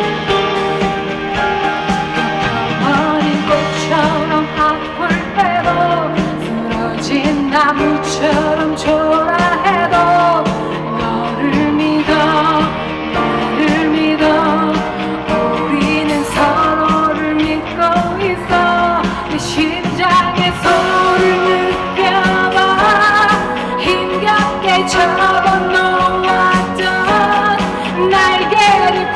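Live band playing a pop-rock song, with a woman singing over it.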